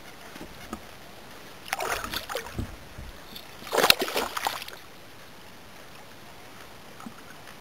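Hooked bass thrashing and splashing at the surface beside a kayak, in two bursts about two and four seconds in, the second louder.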